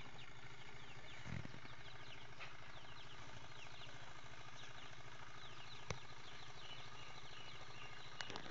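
Honeybee colony on its open combs buzzing in a steady, even hum, with many short, high, falling chirps over it.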